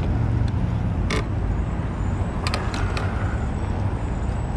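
Steady low rumble of wind and road noise while riding a Zero 10x electric scooter, with a few sharp clicks and rattles about a second in and again near the middle.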